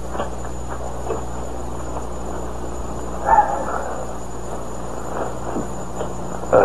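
Faint footsteps and shuffling over a steady hiss and low hum, with one brief louder scrape about three seconds in.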